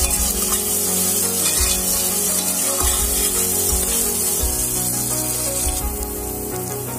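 Sliced onions sizzling in ghee and oil in a steel pressure cooker, with a metal spoon scraping and stirring against the pot. Soft background music plays throughout.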